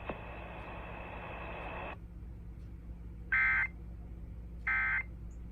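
Emergency Alert System end-of-message code: two short, identical bursts of the digital data tone, about a second and a half apart. Before them a steady hiss runs on and cuts off about two seconds in.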